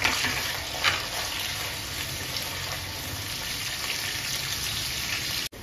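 Sliced onions sizzling steadily as they fry in hot oil in a kadai, with a couple of light spatula clicks in the first second.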